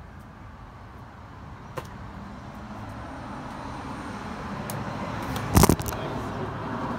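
A rushing background noise that builds over several seconds, then a loud, brief clatter a little over two-thirds of the way through as the propped-up phone tips over against the railing.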